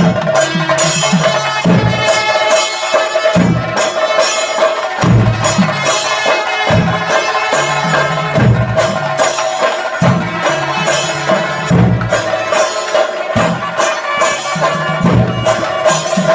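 Kerala temple procession percussion: drums beaten in a steady, dense rhythm with clashing bronze hand cymbals, over one held high note.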